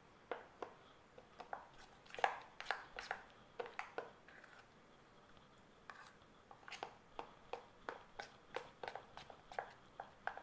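Butter, milk cream and milk powder being beaten by hand in a bowl: faint, irregular clicks and scrapes of the utensil against the bowl, two or three a second.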